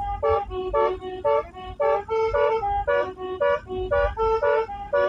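Basuri multi-tone 'telolet' air horn playing a quick melody of short, reedy notes, about three a second.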